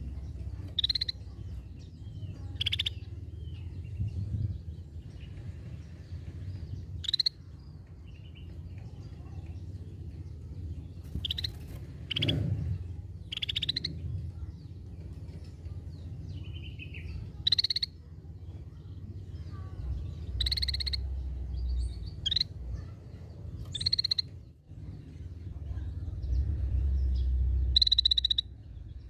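Scaly-breasted bulbul giving short, harsh call notes at irregular intervals of one to three seconds, some of them ringing and rich in overtones, over a steady low background rumble.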